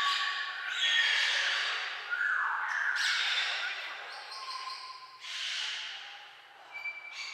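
A flock of parrots squawking: harsh calls from several birds overlapping one another, easing off briefly near the end.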